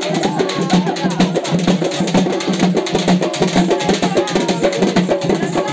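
A melam, a South Indian festival drum band, playing: drums beat a fast, dense, steady rhythm with a wavering melody line above them.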